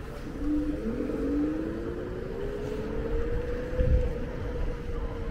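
Electric scooter's motor whining, rising in pitch as it speeds up over the first two or three seconds and then holding steady, over a low rumble. There is a low thump about four seconds in.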